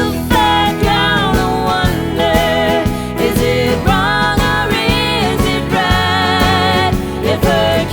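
A song with a sung melody over a steady beat and bass.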